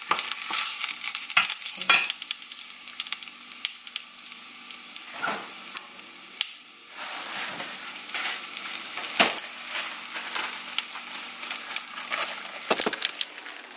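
Onion slices sizzling in hot oil in a stainless steel sauté pan, a steady hiss with frequent crackles and pops.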